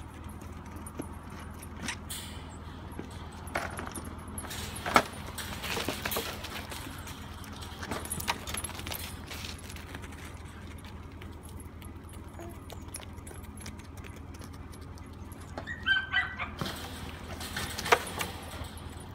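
A herding dog barking a few short times about sixteen seconds in, with scattered knocks from the animals moving in the pen.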